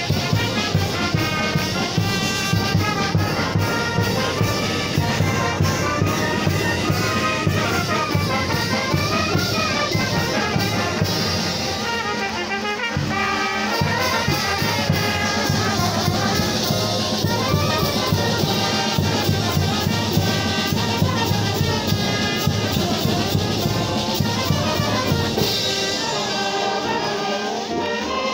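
Children's and youth brass band playing a son or jarabe: trumpets and trombones carry the melody over a steady beat from the bass drum.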